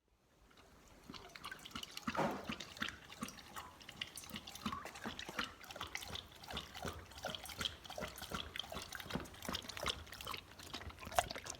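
A dog lapping water from a bowl: a quick, irregular run of small wet splashes and drips, several a second.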